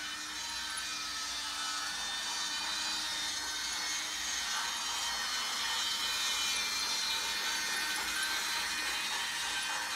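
Toy Christmas train running steadily around its track, its motor and wheels making a continuous whirring noise that gets a little louder past the middle.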